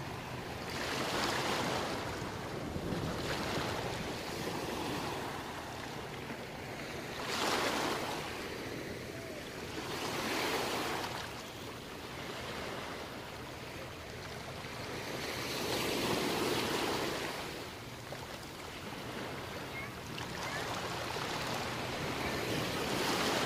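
Small sea waves breaking and washing up a sandy beach, the rush of surf swelling and fading every few seconds.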